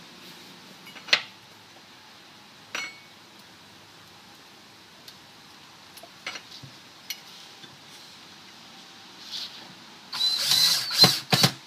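A few separate clicks and knocks as a plastic drawer-glide bracket and screws are handled. Near the end comes a short, loud burst of a power drill driving a screw through the bracket's slot into a pre-drilled hole.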